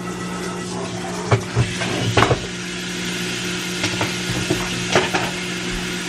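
Scattered knocks and clatter of containers and items being handled while a refrigerator is cleaned out, a few sharp ones spaced about a second apart, over a steady low hum.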